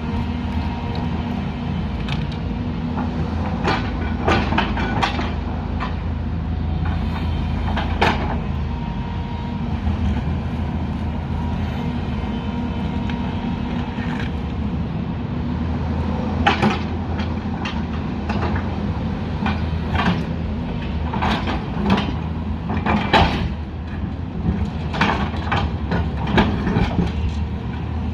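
Heavy construction machine's diesel engine running steadily at a constant pitch, with irregular metallic clanks and knocks from the working machine, clustered about 4 and 8 seconds in and more often in the second half.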